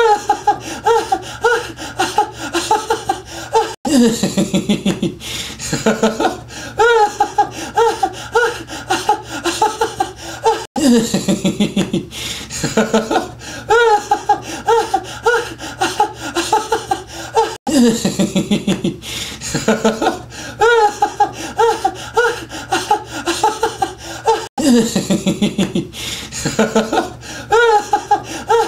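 A man laughing hard while being tickled on his sides, in rapid, evenly repeated pitched bursts of about four a second. Each stretch opens with a lower, longer sound. The same stretch of about seven seconds repeats as a loop, with a brief cut each time it restarts.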